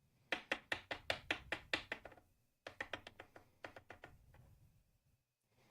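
Typing on a computer keyboard: two runs of quick key taps, about six a second, with a short pause between them.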